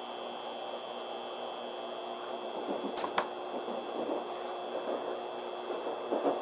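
Steady hum and whine inside a Tokaido Shinkansen car, with two sharp clicks about three seconds in and a few small knocks near the end.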